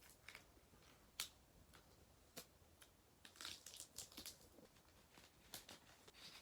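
Near silence with faint scattered clicks and a few short rustles of something being handled.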